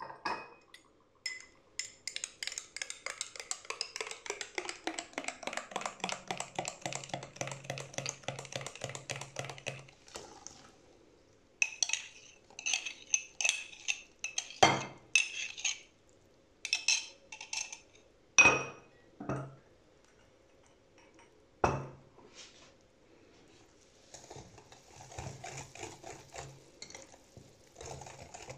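A utensil mixing ingredients in a bowl with quick rhythmic strokes for about eight seconds, then scattered clinks and a few sharp knocks against the bowl, with more mixing near the end.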